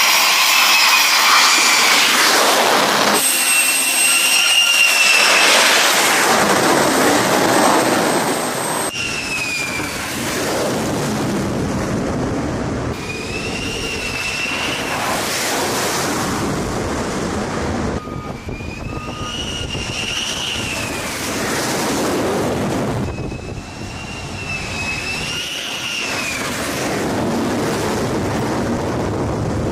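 Jet engines of F-35 fighters on approach to a carrier deck: a loud roar with a high whine that rises and falls several times as jets come in and pass. The sound changes abruptly every few seconds across cut-together shots.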